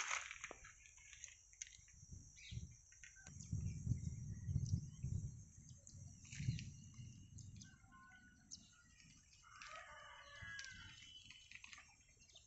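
A rooster crowing once, about three-quarters of the way through, over a steady high hiss. Earlier, low rumbles and a few thumps are the loudest sounds.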